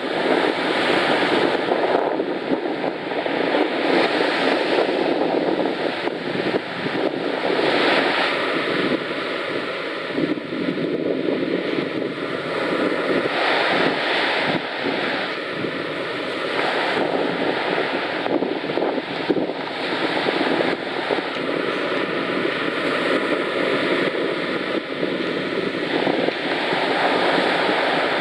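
Wind blowing on the microphone with surf washing on the beach: a steady rushing noise that swells and eases slightly.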